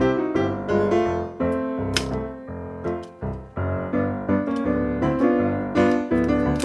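Background piano music in silent-film style, notes following one another quickly.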